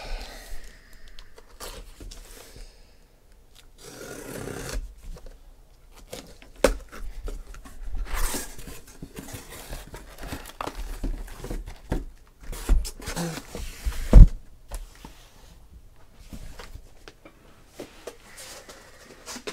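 A cardboard shipping case being opened and shrink-wrapped trading-card boxes lifted out and handled: cardboard and plastic wrap scraping and rustling, with scattered knocks and one loud thump about fourteen seconds in.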